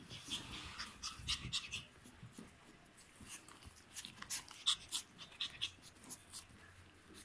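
Two Chihuahua puppies play-wrestling and scrambling over a person's lap, with quick, irregular scuffles and short breaths.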